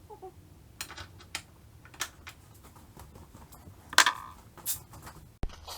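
Scattered light clicks and taps of hand tools and metal parts being handled while fitting a hood damper, with a louder click about four seconds in.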